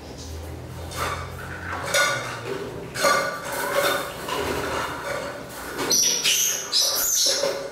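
Baby monkey moving in a plastic basin of bathwater, the water splashing and sloshing in irregular strokes, louder near the end, with faint squeaky calls from the monkey.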